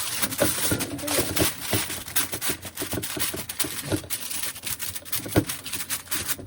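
Rapid irregular clicks and rustles with a few light knocks, from handling and covering a bowl of marinated chicken.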